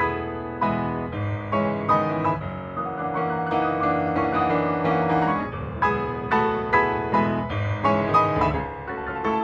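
Piano music: chords and single notes struck several times a second in a lively rhythm.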